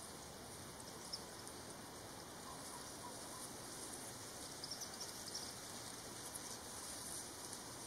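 Faint, steady outdoor background hiss with a few brief, faint high chirps or ticks scattered through it.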